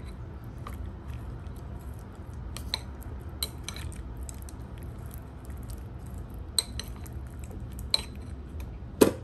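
Chopsticks stirring battered fish fillet pieces in a ceramic bowl, tapping and scraping against the bowl in scattered clicks, the loudest click near the end.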